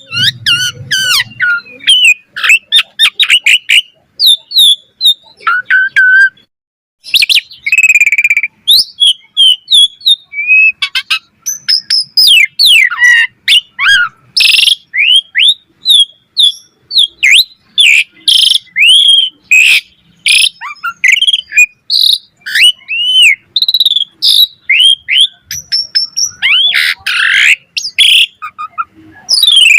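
A jalak suren (pied starling) singing a long, varied song of quick whistles, rising and falling chirps and harsh rasping notes, with a short pause a quarter of the way through.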